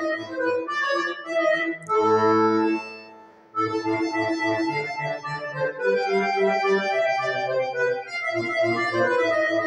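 Bayan (Russian button accordion) played solo: a run of quick notes, then about two seconds in a loud held chord that fades away into a short pause, after which quick passagework starts again.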